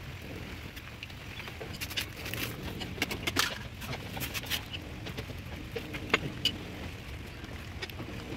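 Scattered light metallic clicks and taps of hand tools and parts against a bare excavator engine block during piston fitting with a ring compressor, over a steady low background hum.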